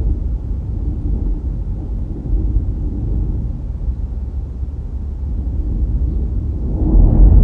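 Low, uneven rumble of wind and road noise from a moving car, growing louder near the end.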